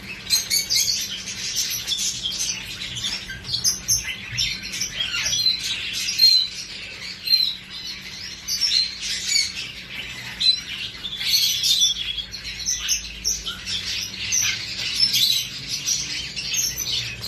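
Parrots chirping and chattering: a continuous, busy stream of short high chirps and quick whistled notes.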